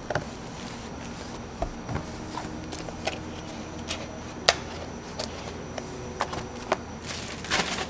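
Paperboard cake box being packed by hand: a plastic-wrapped roll cake slid in and the lid folded and tucked shut, with a few sharp taps and clicks of the card, the sharpest about halfway through, and a burst of rustling near the end.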